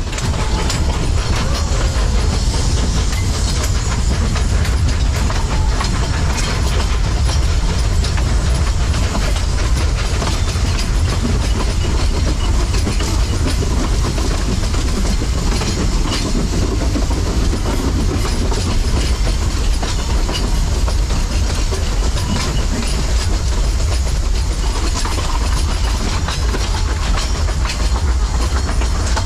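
Narrow-gauge steam train running along the track, heard from a carriage's open end platform: a steady rumble with the wheels clicking over the rail joints.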